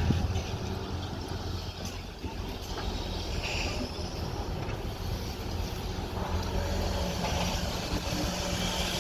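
Excavator's diesel engine running steadily, a low drone.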